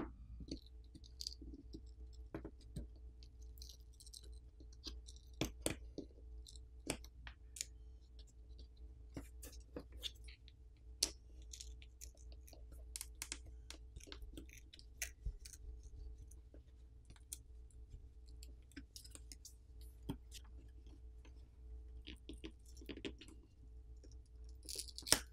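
Faint, irregular clicks and light scrapes of a plastic pry pick and fingertips working a phone's plastic camera bezel loose from the back housing, over a low steady hum.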